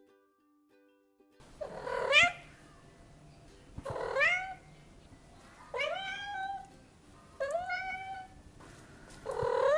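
A cat meowing five times in a row, about every two seconds, each meow rising in pitch.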